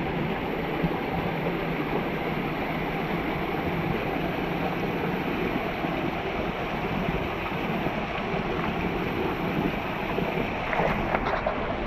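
River current rushing and churning right at the microphone, a steady rush of water with no breaks.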